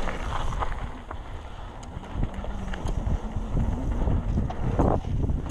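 Trek Session 9.9 downhill mountain bike ridden down a rooty trail: a steady rumble of tyres and wind on the microphone, broken by scattered sharp knocks and rattles as the bike hits roots.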